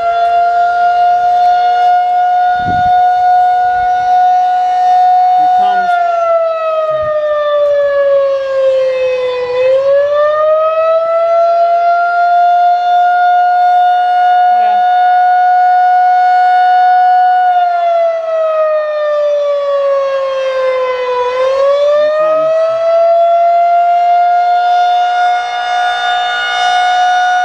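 Outdoor warning siren wailing: its tone climbs to a steady high pitch, holds for several seconds, then slides down and winds back up, twice.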